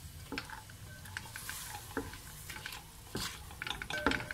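Chopped onions and green capsicum sautéing in oil in a metal pot, sizzling softly while a silicone spatula stirs them, with irregular scrapes and clicks against the pot.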